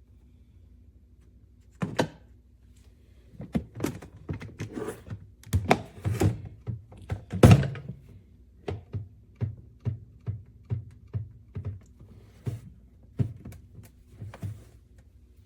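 Handling of a coffee maker and its parts: a string of hard knocks and clicks, uneven and loudest in the first half, then a steadier run of about two clicks a second.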